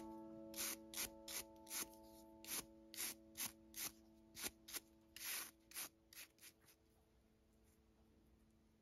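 Bristles of a small nail dust brush flicking quickly across the fingertips to sweep off filing dust: short scratchy strokes, about two a second, growing fainter and stopping after about six and a half seconds. A soft held music chord fades away beneath them.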